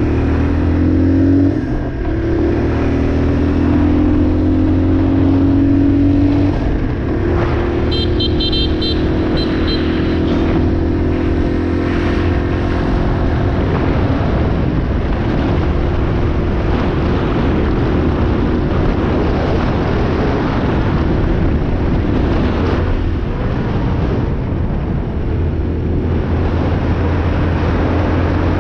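A 2003 Yamaha XT225's air-cooled single-cylinder four-stroke engine running while the bike is ridden. The engine note changes pitch in the first couple of seconds and again about six seconds in, then holds fairly steady.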